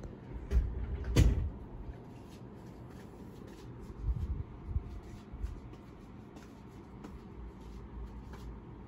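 Handling noise from the hand-held camera being moved over a book: a few dull low bumps with a sharp click about a second in, more soft bumps a few seconds later, over a faint steady hiss.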